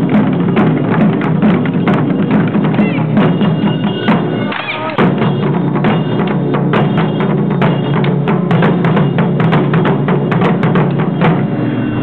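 Ensemble of Japanese taiko drums, hand-held drums among them, struck with sticks in a fast, driving rhythm of many sharp beats. The playing dips briefly about four and a half seconds in, then carries on.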